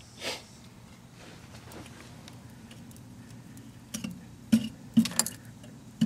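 A few sharp metallic clinks and knocks in the last two seconds as a scorched Dermoplast aerosol can is handled inside a burnt-out microwave.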